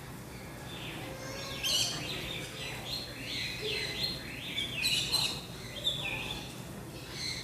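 Birds chirping: a busy run of short, high, gliding calls that starts about a second in and thins out near the end.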